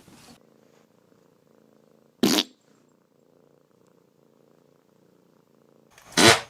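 A cat purring softly, interrupted twice by a short, loud burst of noise: once about two seconds in and again near the end, about four seconds later.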